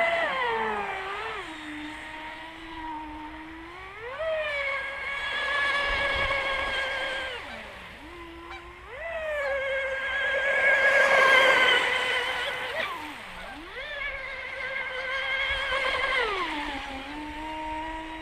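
Delta Force 29 RC boat's Rocket 3674 3050KV brushless motor whining at full throttle in three high-pitched passes, the pitch dropping briefly between them as the throttle is eased off and sliding back to a lower steady whine near the end. The loudest pass, about halfway through, has a rushing hiss of water with it.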